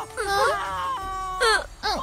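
Cartoon baby pixie crying and whimpering in a string of short, wavering sobs, one held a little longer in the middle.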